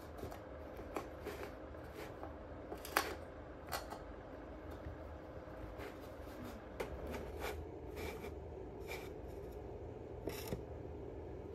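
A chinchilla nosing and scrabbling at a wooden box: soft scratching and rubbing with scattered light clicks of teeth or claws on the wood.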